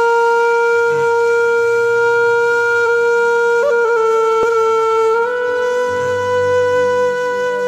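Background music for a news intro: one long held wind-like note over quieter low notes that come and go. The note wobbles briefly in pitch just before the middle and steps up slightly a little past five seconds.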